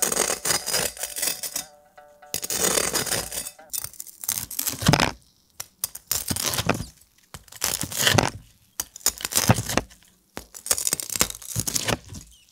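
Cleaver cutting through the crisp crackling skin of roast pork belly on a wooden board: several loud crunching, crackling cuts, some ending in a knock of the blade against the board.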